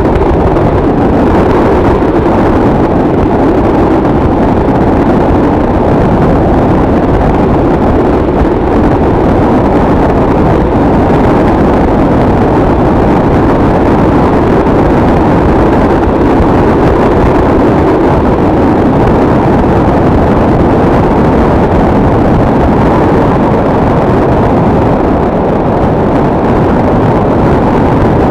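Motorcycle cruising at steady highway speed: a loud, steady rush of wind noise on the bike-mounted microphone, with the engine's drone underneath and no change in pace.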